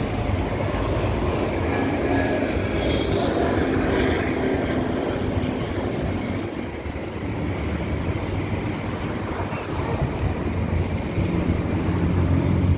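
A steady low motor drone mixed with street traffic noise, dipping slightly about halfway and swelling again near the end.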